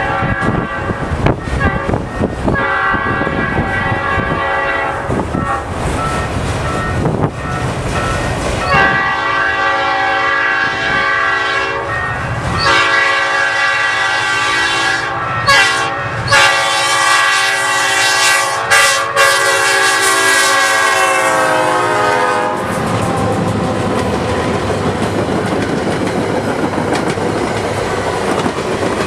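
A diesel locomotive's chime horn sounding one long, drawn-out blast over the rumble and clickety-clack of passing railcars. The horn grows much louder about a third of the way in, then drops slightly in pitch and cuts off about three quarters through, leaving the wheels clattering over the rail joints.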